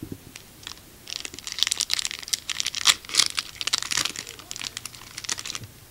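Plastic wrapper of a 2016 Topps Stadium Club baseball card hanger pack being torn open and crinkled by hand: a dense crackle from about a second in until near the end, loudest around the middle, after a light knock at the start.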